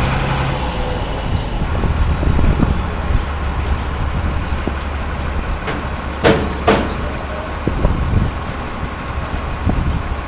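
Heavy machinery running with a steady low hum, with scattered knocks and two sharp metallic clanks about six seconds in.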